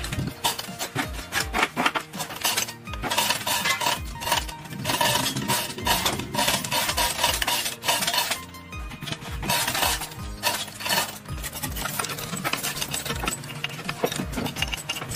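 Clinks, knocks and scraping of metal parts and hand tools being worked on an old engine, many short strikes in quick succession, over background music.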